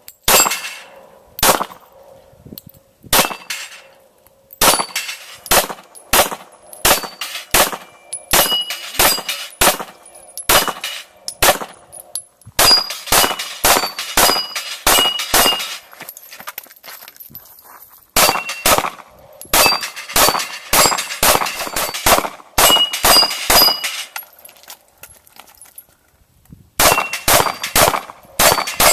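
Pistols fired in strings of shots at steel plate targets, many hits followed by a short metallic ring from the plates. The firing pauses for a couple of seconds about midway and again near the end.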